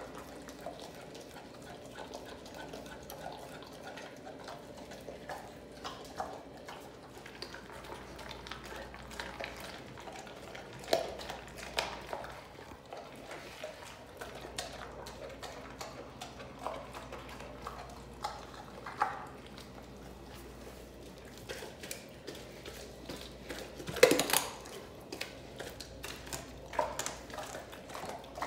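American bully dog gnawing a large raw turkey leg: wet chewing and tearing with scattered clicks and knocks as the leg shifts on the tile floor, the loudest knock a few seconds before the end.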